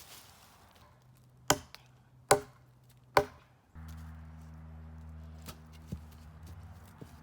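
Three sharp chops into wood, a little under a second apart. After them a steady low hum sets in.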